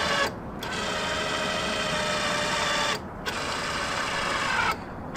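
Electric adjustment motor of a power tow mirror whirring in short runs, with brief stops just after the start, at about three seconds and near the end, as the mirror glass is moved. The motor is working properly.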